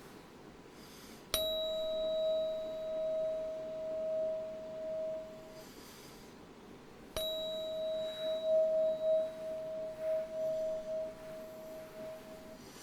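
Tuning fork struck twice, about six seconds apart. Each strike rings a steady pure tone at the same pitch that fades out over several seconds. The second ring swells and dips in loudness as it fades.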